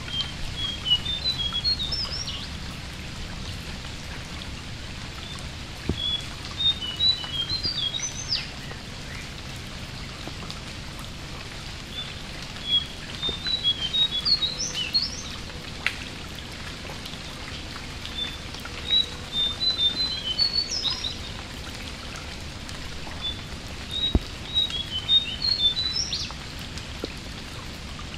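A jongkangan bird singing short phrases of quick, high, chirpy notes that end in upward sweeps, repeated five times about every six seconds. Steady rain pattering on the water runs beneath it.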